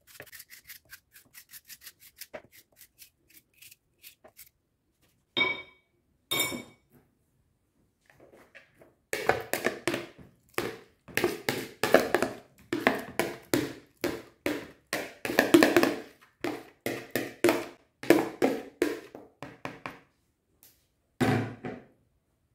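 A knife cutting small chunks off a peeled apple held in the hand, a quick run of light cuts and rubs. Two sharp clinks follow, then a spoon scraping and knocking grated pumpkin out of a bowl into the batter: a long irregular series of thuds and scrapes, about two or three a second, with one more knock near the end.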